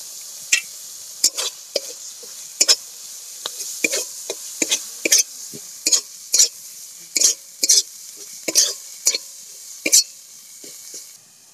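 A spatula stirring and scraping ginger-garlic-onion paste with turmeric across a metal karahi, in short, sharp strokes about two a second, over the steady sizzle of the paste frying in hot oil. The sizzle fades near the end.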